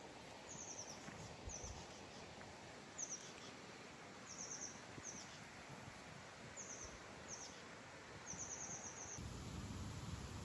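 A small songbird calling faintly with short, high, falling chirps, some single and some in quick runs of four to six, over a soft outdoor background hiss. About nine seconds in the chirps stop and a low rumble begins.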